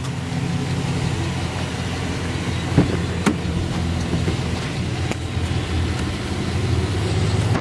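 Vehicle engine idling with a steady low hum, with a couple of short clicks about three seconds in.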